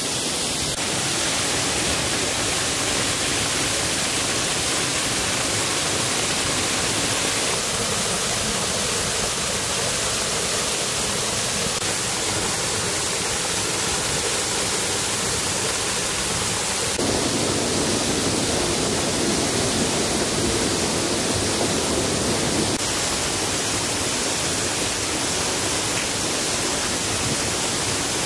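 Steady rush of water: a small waterfall splashing into a pool and a shallow stream running over pebbles. The tone of the rush changes a few times, about a quarter, three fifths and four fifths of the way through.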